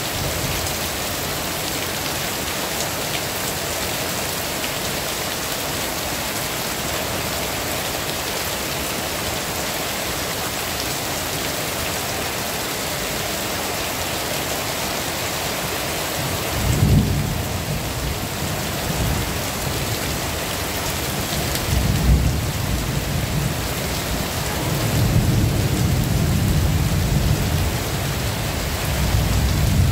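Heavy rain falling steadily, with low rumbles of thunder coming in about halfway through and rolling on near the end.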